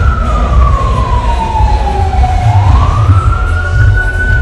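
A siren wailing slowly: one tone sinks over about two and a half seconds, climbs back up and starts to sink again. Beneath it is a heavy, uneven low rumble.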